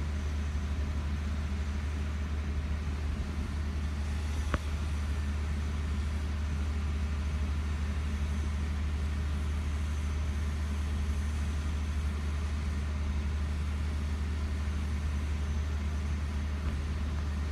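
Car engine idling, a steady low hum heard from inside the cabin, with one short sharp click about four and a half seconds in.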